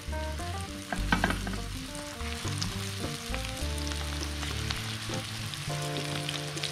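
Hot oil sizzling and crackling in a cast-iron skillet as flour-coated chicken thighs are laid in skin side down to sear, with a louder burst of crackle about a second in. Soft background music plays underneath.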